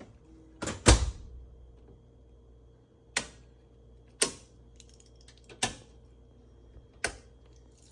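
Circuit breakers being snapped back on one at a time: a series of sharp single clicks a second or so apart. The first, about a second in, is the loudest and carries a dull thud.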